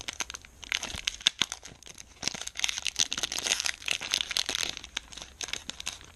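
Foil wrapper of a Pokémon TCG booster pack crinkling and being torn open by hand: a dense, uneven run of crackles.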